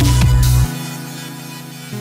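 Electronic dance music with a heavy bass line; the bass cuts out about two-thirds of a second in, leaving a quieter, lighter repeating pattern.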